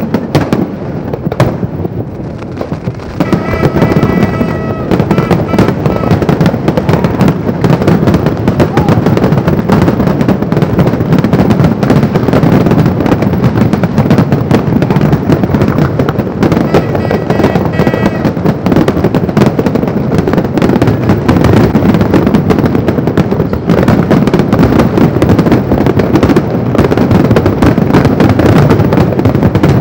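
New Year's fireworks display going off in rapid, continuous bangs and crackles, growing denser and louder about three seconds in.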